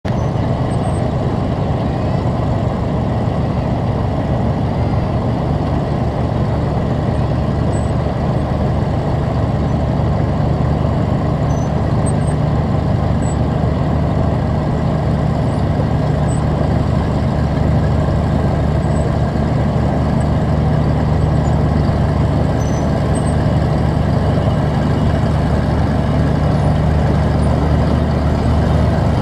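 FV432 armoured personnel carrier's diesel engine idling steadily, heard close from the hull roof.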